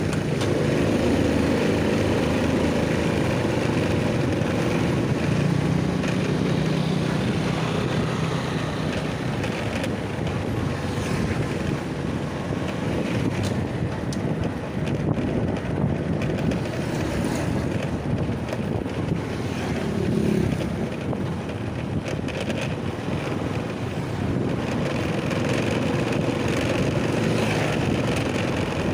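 A small engine running steadily while travelling, with heavy wind buffeting the microphone.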